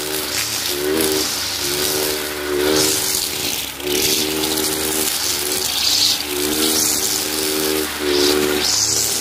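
Kawasaki TJ45 two-stroke brush cutter engine running at high speed, its note dipping and recovering every second or two as the cutting head sweeps through the grass, with a hissing swish of cut grass on each sweep.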